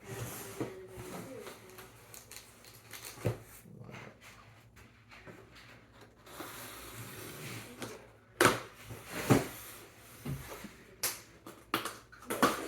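Cardboard shipping box being handled and opened, with scattered knocks and rustles and two loud bumps about eight and nine seconds in, as loose contents shift inside; the man takes these for the aluminium tube spars.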